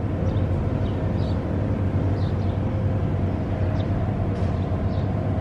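Outdoor ambience: a steady low rumble, with a few faint short high chirps now and then.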